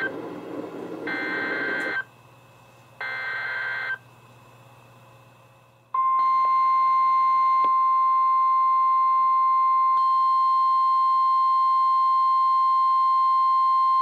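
NOAA Weather Radio alert broadcast: short bursts of warbling SAME digital header tones about a second apart, then, about six seconds in, the loud steady 1050 Hz warning alarm tone. A fainter, higher tone joins about four seconds into it. This is the header and alarm that announce a Special Marine Warning.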